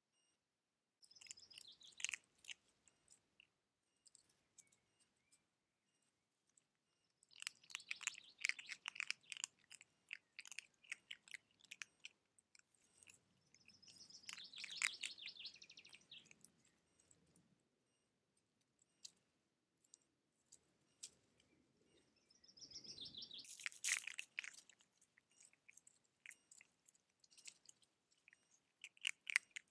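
Red fox cubs crackling and rustling through dry fallen leaves as they nose and scratch at the ground, in several bursts of rapid crisp clicks. A few high chirps are mixed in.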